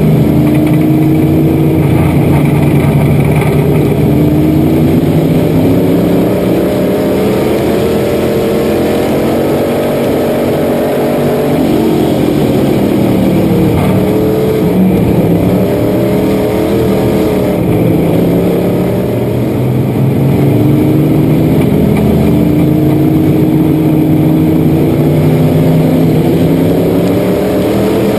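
Dirt-track race car's engine heard from inside the cockpit at racing speed. Its pitch climbs, drops off and climbs again several times as the car goes down the straights and through the turns.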